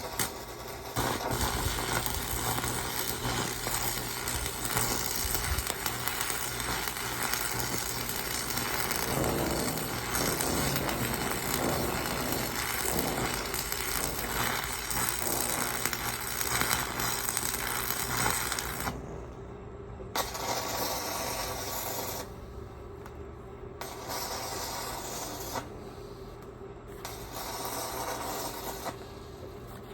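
Electric arc welding crackling and sizzling, one long weld of about eighteen seconds, then three shorter welds of a second or two each with pauses between them, over a steady low hum.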